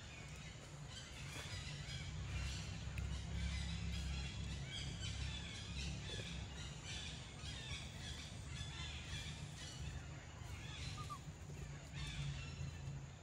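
Birds chirping and calling over a steady low rumble.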